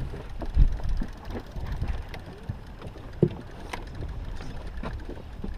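Wind and water noise on a boat at sea: a low, steady rumble with scattered dull knocks, the loudest about half a second in and another about three seconds in.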